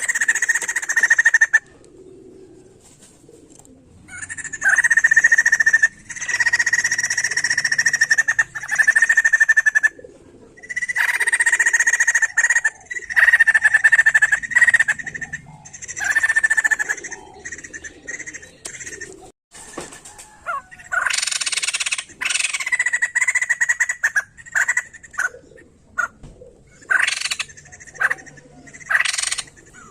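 White-crested laughingthrush (poksay jambul) calling in long, fast-pulsed chattering phrases, one after another with short pauses between them.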